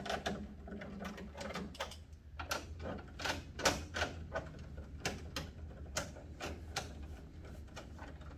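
Irregular clicking and ticking, about two clicks a second, from a hand tool backing out the 5/16-inch screws that hold the ice maker's back cover. A low steady hum runs underneath.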